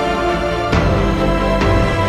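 Background music: held chords with struck accents, one a little under a second in and another near the end.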